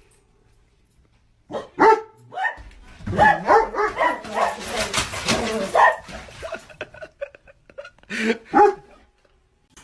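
A dog barking: a few barks, then a quick run of barks, and two more loud barks near the end.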